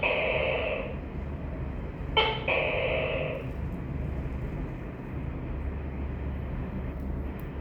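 Tokay gecko calling twice, about two seconds apart. Each call is a sharp first note followed by a drawn-out second note lasting about a second, over a steady low hum.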